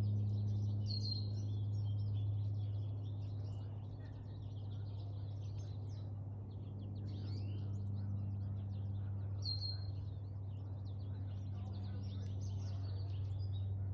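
Low, steady drone of a Cessna 310R twin piston-engine airplane flying over, easing off a few seconds in and building again, with small birds chirping throughout.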